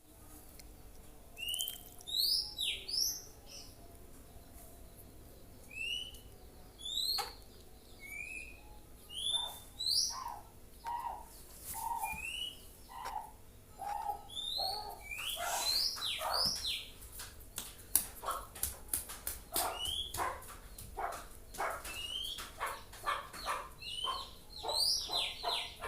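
Oriental magpie-robin (kacer) singing: short rising whistled notes repeated every second or so, joined by short lower notes, then a fast run of sharp clicking notes in the second half.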